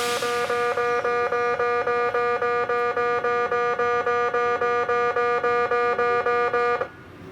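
Electronic warning bell of a railway level crossing ringing, an even ding repeating about four times a second, which stops abruptly near the end. A brief hiss at the very start.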